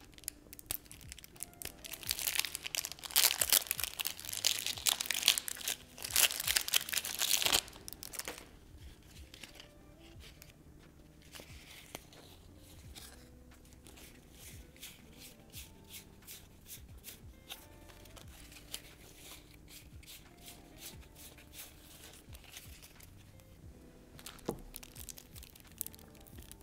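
Cellophane shrink wrap crinkling and tearing as it is pulled off a deck of playing cards, loudest for about five seconds near the start. After that, quieter clicks and flicks of the cards being handled, over soft background music.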